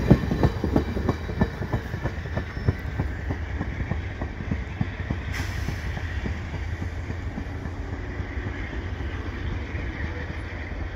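Via Rail's stainless-steel Budd passenger coaches rolling past, their wheels clacking over rail joints over a low rumble. The clacks are loud and close together at first, then thin out and fade as the last car pulls away.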